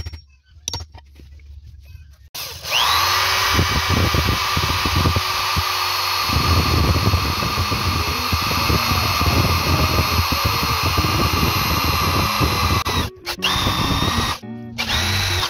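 Electric hand drill starting with a rising whine about two seconds in, then running steadily while its bit bores a bolt hole through a bamboo handle, the sound turning rougher once the bit bites into the bamboo. Near the end it stops briefly twice and starts again.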